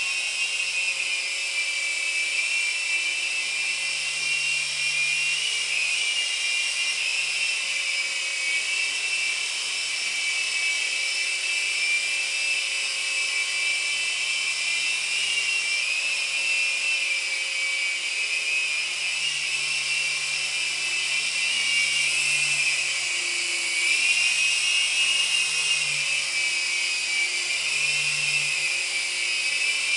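Small electric RC helicopter in flight: a steady high-pitched whine from its electric motor and spinning rotors, the pitch wavering up and down as it manoeuvres.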